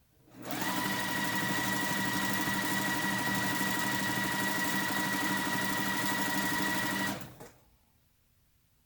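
Electric sewing machine running steadily, stitching a quarter-inch seam in quilting fabric; it starts about half a second in and stops after about seven seconds.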